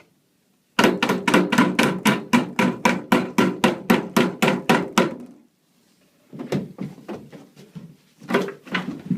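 A fast run of sharp knocks or thuds, about five a second, for some four and a half seconds. After a short pause a second, more irregular run of knocks follows.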